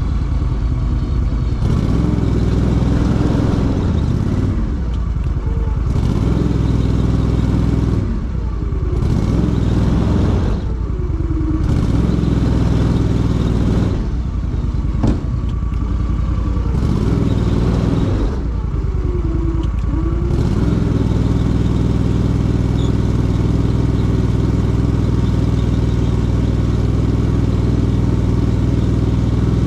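Argo amphibious ATV's engine running under load, its pitch dipping and picking up again about five times over the first twenty seconds as the throttle is worked, then holding steady. A single sharp click about halfway through.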